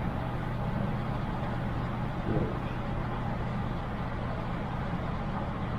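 Steady low background hum with an even hiss, unchanging throughout and with no distinct clicks or knocks.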